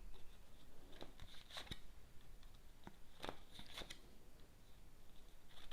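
Fortune-telling cards being shuffled and drawn by hand: faint rustling with a few soft card clicks about a second apart.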